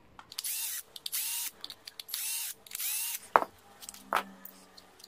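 A power screwdriver whirs in four short runs, backing out the screws of a battery pack's housing. Two sharp clicks follow near the end.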